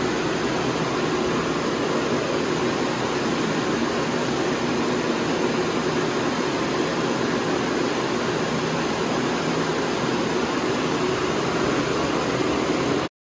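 A fan-driven air dryer blowing steadily, a loud even rush of air with a faint hum under it. It cuts off suddenly near the end.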